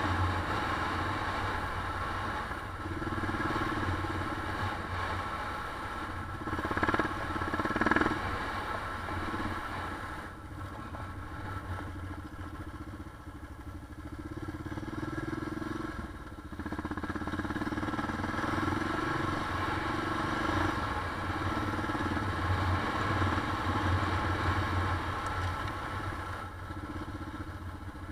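Motorcycle engine running close up as the bike is ridden over a rough dirt track, its note and loudness rising and falling with the throttle, louder around seven and eight seconds in.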